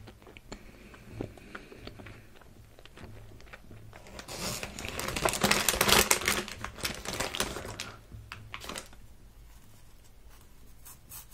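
Plastic bag of marshmallows crinkling as it is handled, rising to a dense burst of crackles in the middle few seconds, with softer rustles before and after.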